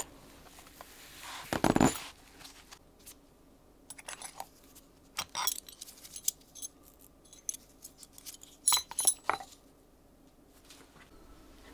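A zipper run open on a fabric tool roll, then scattered light metallic clinks as old iron bit keys are picked up and handled among steel files, with a cluster of sharper clinks about nine seconds in.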